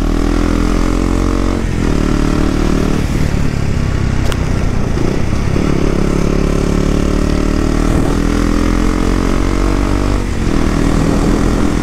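Motorcycle engine running steadily under way, easing off briefly twice, about two seconds in and again near the end, over constant wind and road noise.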